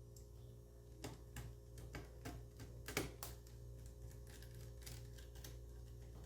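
Irregular small clicks and taps, the loudest about three seconds in: a small screwdriver and parts being handled while an SSD is fitted and screwed into a laptop.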